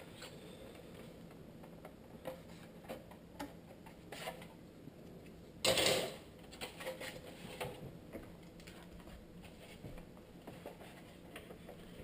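Scattered light clicks and taps of small plastic and metal headlight parts being handled on a workbench, with one louder clatter a little under six seconds in.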